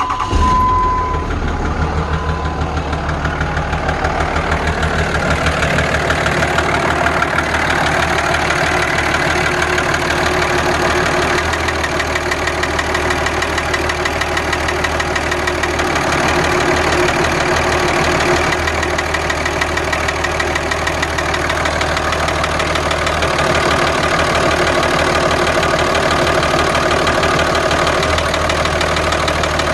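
2003 Dodge Ram 2500's 5.9 Cummins inline-six diesel idling with a steady, rhythmic knock. The owner thinks it sounds like piston slap and suspects the number one injector is still leaking.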